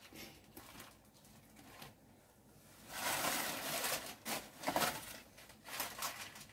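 Plastic packaging crinkling and rustling as it is handled and crumpled, starting about three seconds in after a few faint soft handling sounds.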